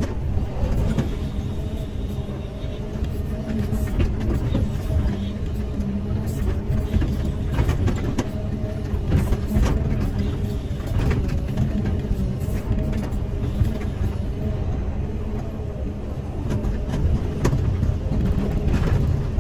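Caterpillar 320E hydraulic excavator's diesel engine running steadily under digging load, with scattered clicks and scrapes from the bucket working dry earth.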